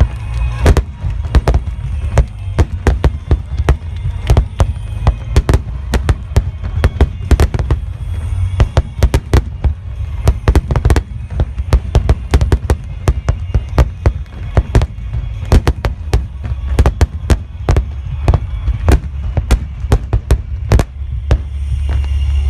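Fireworks display: a dense, continuous barrage of shell bursts, several bangs a second, over a deep rumble. Near the end the bangs stop and only a steady low rumble remains.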